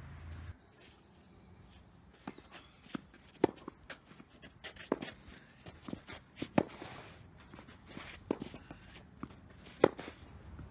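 Tennis rally on a clay court: sharp pops of rackets striking the ball and the ball bouncing, the loudest hits coming about every three seconds, with shoes scuffing and sliding on the clay between them.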